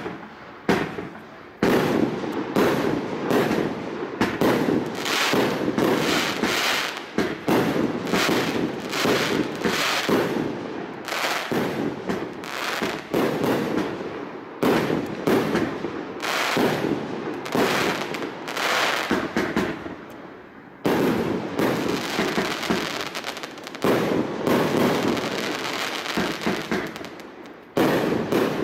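A 36-shot, 1.2-inch calibre consumer firework cake (Graffiti TKB231) firing, shot after shot with their bursts following in quick succession, almost without a break.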